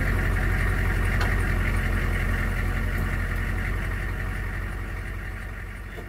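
Humvee's diesel V8 engine idling steadily, with a low even rumble that fades out near the end.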